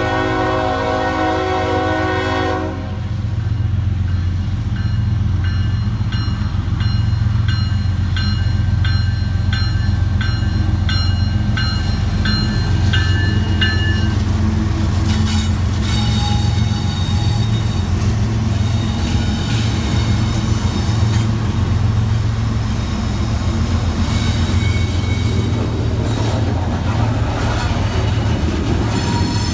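A CSX freight diesel locomotive sounds its horn, which cuts off about two and a half seconds in. The locomotive's diesel engine rumbles as it passes, with a crossing bell ringing at an even pace through the middle. Loaded coal hoppers then roll by, their wheels clattering with some squeal.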